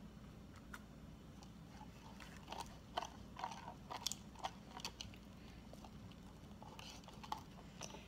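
Clear glue slime being mixed and squished, giving faint scattered sticky clicks and squelches, clustered in the middle and again near the end.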